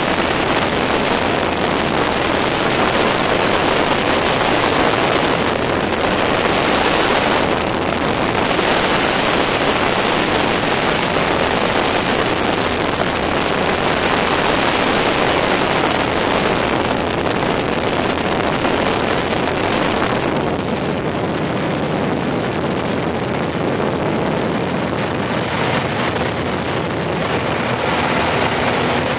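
Single-engine Cessna's piston engine and propeller droning steadily, heard from inside the cabin with wind rushing past.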